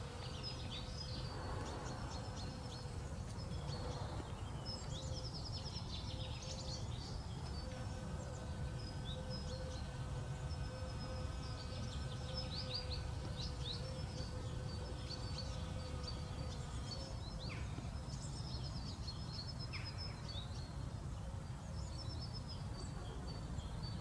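Small birds chirping and trilling in short high calls throughout, over a steady low rumble and a faint steady hum.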